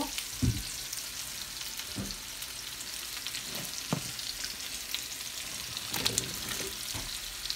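Steady sizzling hiss from a hot pan on the stove, broken by a few soft knocks of kitchenware. About six seconds in, cut yam pieces are tipped from a plastic colander into a pot of hot water.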